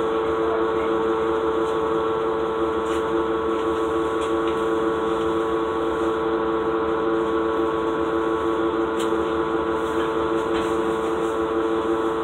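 Cummins ISL diesel engine of a 2007 Gillig Low Floor bus, heard from inside the cabin, running steadily with a strong two-note whine over its drone. The odd, 'funky' sound is the sign of an engine fault that was later repaired.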